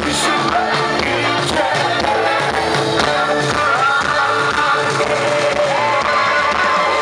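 Live band music with a singer, heard from within the concert audience: a steady beat under a sung melody.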